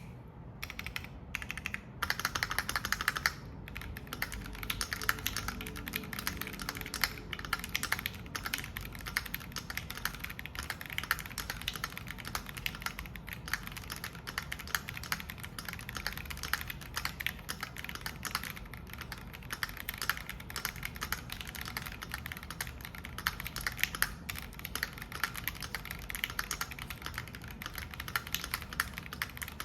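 Typing test on a Keychron Q1 V2 aluminium mechanical keyboard with JWK Vertex V1 switches and GMK Seafarer clone keycaps, in its stock state without the tape, force-break, stabiliser or PE-foam mods. A few separate key presses, then about two seconds in, steady fast typing of many keystrokes.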